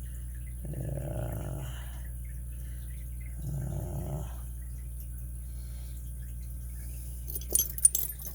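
Two soft, breathy murmurs from a person working, then a quick cluster of sharp metallic clicks near the end as lock-picking tools and a padlock clink together.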